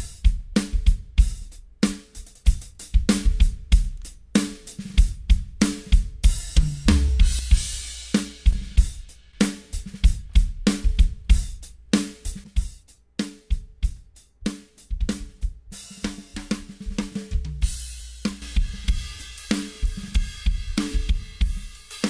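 Recorded drum kit playing in a music track, with regular kick and snare hits about twice a second under hi-hat and cymbals. The track is heard through a hardware bus compressor being switched between an SSL bus compressor and a Carlec RQD6400 for an A/B comparison.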